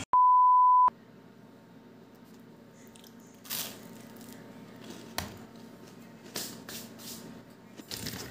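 A TV colour-bars test-tone beep: one steady, loud 1 kHz tone lasting just under a second that cuts off sharply. After it there is a faint steady hum with a few soft, short noises.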